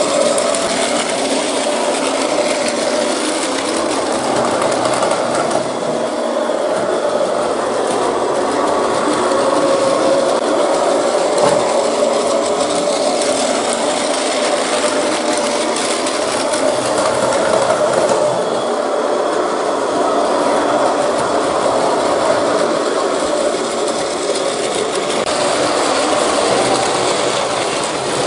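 Battery-powered Plarail toy train running on plastic track: a steady whir of its small motor and gears with a light rattle of the wheels.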